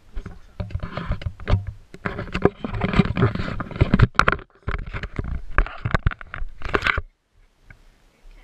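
Handling noise from a camera being picked up and moved: rubbing, rustling and many sharp knocks against the microphone for about seven seconds, stopping suddenly once it is set down on a blanket.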